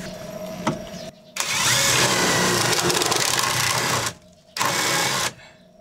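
Cordless drill running under load, boring a pilot hole through a wooden wall panel into the van's steel body: one long run of nearly three seconds, a short pause, then a brief second burst.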